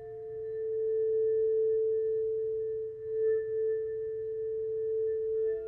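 Film soundtrack music: one long, steady, pure-sounding note, joined near the end by a lower and a higher note.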